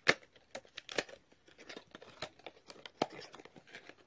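Packaging being opened and handled to take out a clip-on lavalier microphone: irregular crinkling and crackling snaps, the loudest just after the start.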